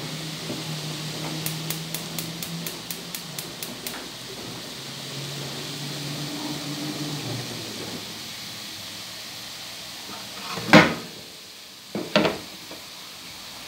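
Broccoli and vegetables sizzling gently in a frying pan, a steady hiss. Near the end, two sharp knocks of a utensil or the pan itself against the pan and stove, a little over a second apart.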